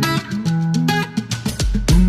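Background music led by plucked guitar, with a deep bass note and a beat.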